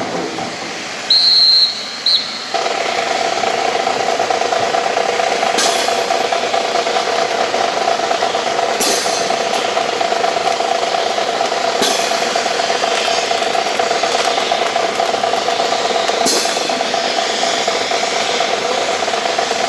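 A high whistle blast about a second in, followed by a short second toot. A steady mechanical hum then runs on, with a sharp clack about every three seconds, typical of drill rifles being handled.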